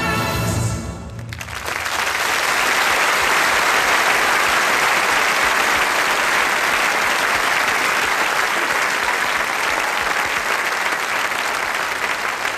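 The music stops about a second in, and an audience breaks into steady applause that fills the rest.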